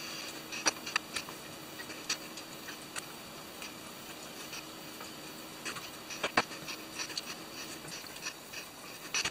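Hex screwdriver driving small bolts into the standoffs of a carbon-fibre drone frame: scattered light clicks and ticks of metal on metal and carbon over a faint hiss, the loudest about six seconds in.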